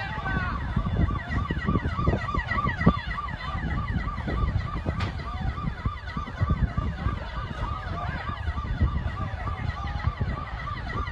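Several emergency vehicle sirens sounding at once: one repeats a short rise-and-fall about three times a second while others sweep at different rates, over a heavy low rumble.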